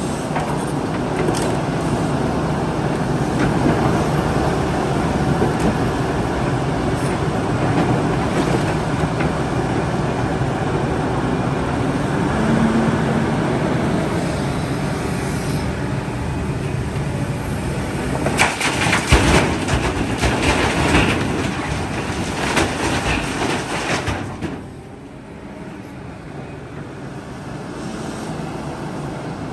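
Diesel engine of a large excavator running steadily under load, with a run of loud clattering bangs a little past the middle. The level drops noticeably near the end.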